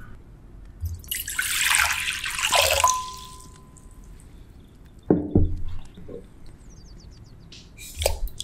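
Water pouring into a bowl for about two seconds, starting about a second in, followed by a faint ring. Then comes a knock about five seconds in and another near the end.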